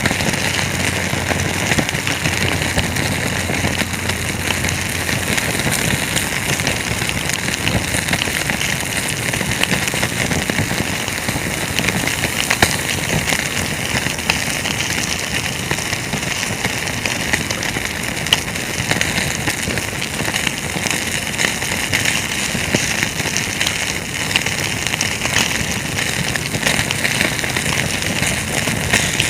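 Wood campfire crackling steadily: a dense run of small snaps over a hiss, with a couple of louder pops.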